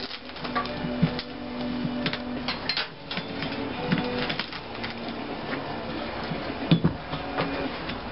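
Thin sheet steel pressed and worked by hand over a steel pipe on a metal workbench: irregular scraping, creaking and light clicks of metal, with one sharper knock about two-thirds of the way through.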